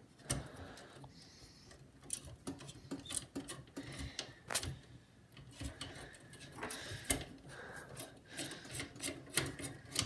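Irregular small clicks and ticks of a screwdriver and hands working inside a desktop PC case, unscrewing the CPU cooler's retaining screws.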